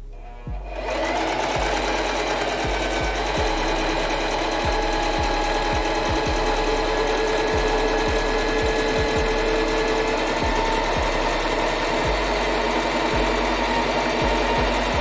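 Electric sewing machine running steadily, stitching a test seam through fabric to check that it is threaded right. It starts under a second in and runs without a break to the end.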